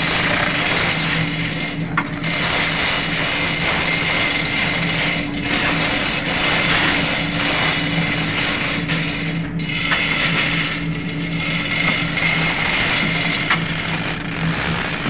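Manual chain hoist ratcheting and its chain rattling as the hand chain is pulled to lift an auxiliary engine, over a steady hum of running machinery.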